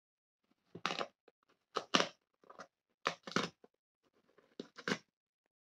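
Cardboard pull-tab tear strip being ripped along a small box, crackling in several short tearing bursts about a second apart.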